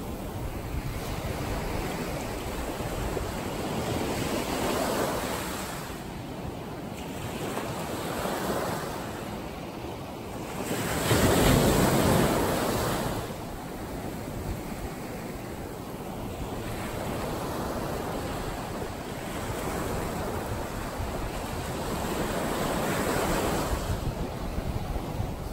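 Ocean surf: small waves breaking and washing up a sandy beach in a steady rhythm of swells, with one larger wave crashing loudest about halfway through.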